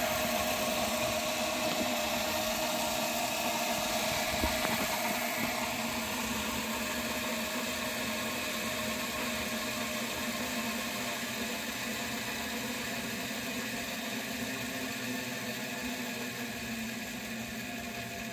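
Small motors in a 1/48 scale Hobbyboss V-22 Osprey model spinning its two plastic proprotors: a steady whir with blade hiss, growing slightly quieter in the second half. A brief tick about four seconds in.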